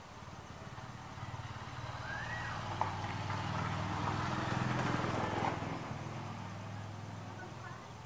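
A motor vehicle passing by: its engine hum swells to a peak about four to five seconds in, then fades away.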